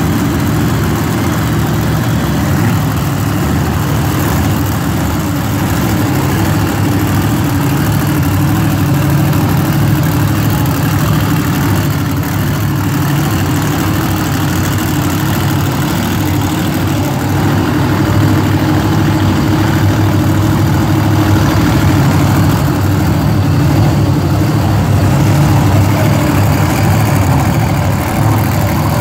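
Monster truck supercharged V8 engines idling and running steadily, loud and low, as the trucks roll slowly past.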